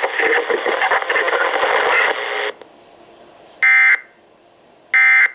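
NOAA Weather Radio broadcast voice over a receiver's small speaker stops about two and a half seconds in. Then an electronic beeper sounds two loud, short beeps about a second and a half apart.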